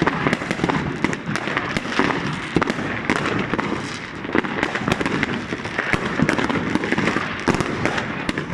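Consumer fireworks barrage going off: a dense, continuous run of bangs and crackles, several a second.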